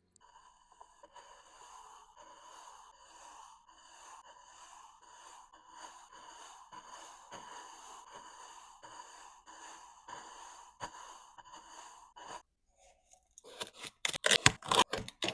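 Kinetic sand being cut: a soft, even run of slicing and scraping strokes, a little under two a second, then near the end a louder burst of sharp crunching as the sand is broken apart.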